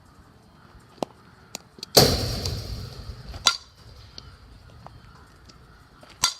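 Sharp cracks and pops of a softball striking a bat or glove in fielding practice. The loudest comes about two seconds in and trails off over a second or so, with another crack a second and a half later and one more near the end.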